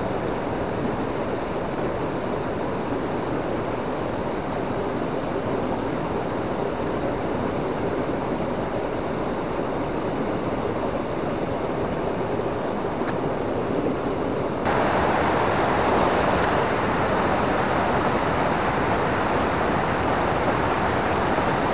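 Steady rush of a mountain torrent's water over rocks and a small waterfall. About fifteen seconds in it changes suddenly to a louder, brighter rush of close rapids.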